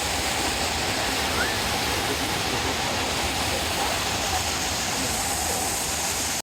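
Waterfall: a steady, even rush of water pouring onto rocks.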